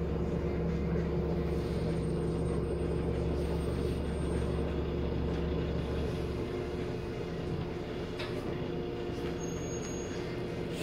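City bus engine and road noise heard from inside the passenger cabin while the bus is moving: a steady drone with a hum. The deepest part of the rumble drops away about six seconds in.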